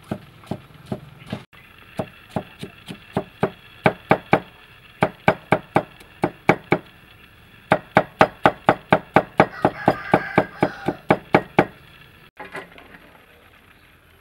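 Cleaver chopping yellow bell pepper on a thick wooden chopping block: a steady run of sharp knocks on the wood, two to four a second with a couple of short pauses. The chopping stops a couple of seconds before the end.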